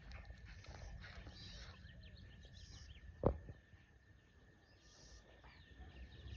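Faint outdoor ambience with scattered bird chirps and a steady thin high tone, broken by one sharp knock about three seconds in.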